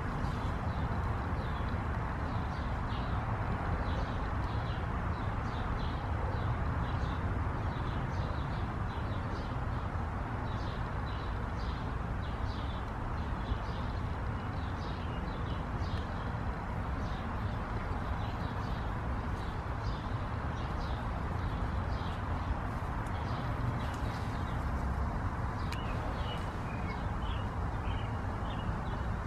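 Steady outdoor background noise with many short, high chirps scattered throughout, more frequent near the end.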